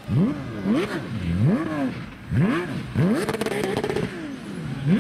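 Porsche rally car engine revving hard and lifting off again and again, its pitch climbing steeply and falling about five times, with a short burst of crackles around the middle.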